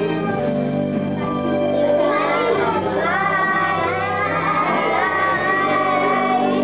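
Group of children singing a song together over instrumental accompaniment; the sung melody comes through more strongly from about two seconds in.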